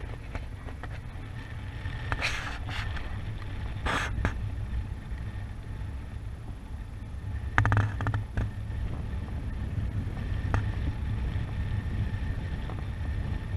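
Wind buffeting the microphone of a harness-mounted camera on a paraglider in flight: a steady low rumble with airy hiss, and short rustling gusts about two, four and eight seconds in.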